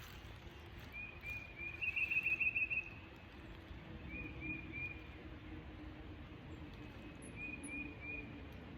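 A bird chirping in short phrases of about three high notes, repeated several times, with a quicker run of notes about two seconds in that is the loudest part. A faint steady low hum runs underneath.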